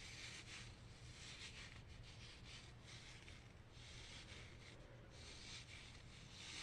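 Near silence, with faint soft rubbing and rustling that comes and goes about every second.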